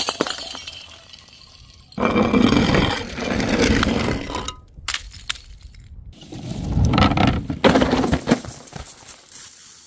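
Several separate bouts of crunching and breaking, full of sharp cracks and clinks. One starts abruptly about two seconds in, and another comes around seven seconds in, with a few louder snaps. Sudden drops to quiet come between the bouts.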